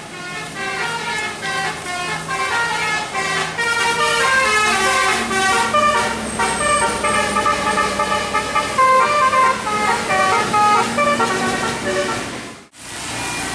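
Bus's Basuri telolet horn playing a fast melody of stepped, sustained notes, with the engine running low underneath. It cuts off suddenly near the end.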